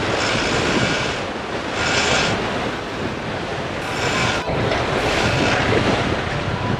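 Wind buffeting the microphone in gusts over the rush of churning wake water behind a boat under way, its twin outboard motors running underneath.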